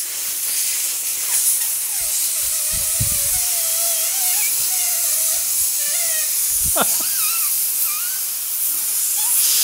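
Compressed air hissing steadily from the nozzle of a workshop air line.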